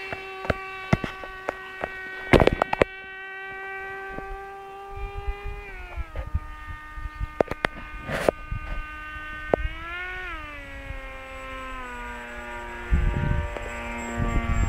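Electric motor of a depron foam RC Su-37 model jet in flight, a steady whine that drops in pitch about six seconds in, rises briefly near ten seconds, then settles lower. Sharp clicks and a short low rumble on the microphone break in now and then, the rumble near the end.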